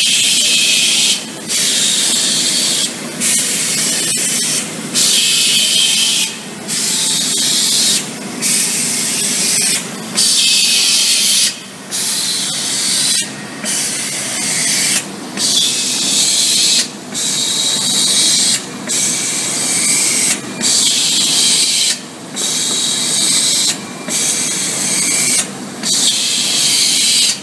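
Esatec Turbotec window patching machine running: a loud hiss of air that cuts out briefly about every 1.7 seconds, in an even rhythm, over the machine's steady mechanical running noise.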